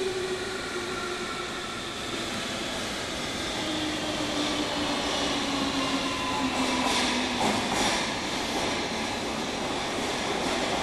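Interior running sound of a JR Kyushu 305 series motor car in a subway tunnel: the whine of its Toshiba permanent-magnet synchronous motors and inverter falls steadily in pitch as the train slows, over wheel-on-rail rumble and air-conditioning noise. A brief hissing burst comes about seven to eight seconds in.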